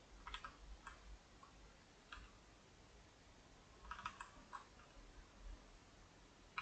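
Faint clicks of a computer keyboard and mouse: a few scattered single taps, with a quick cluster of three or four key presses about four seconds in.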